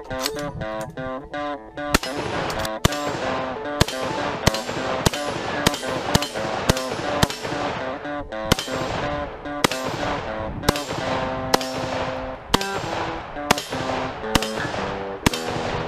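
AK-pattern rifle fired as a string of single shots, roughly one or two a second, starting about two seconds in. Guitar background music plays throughout.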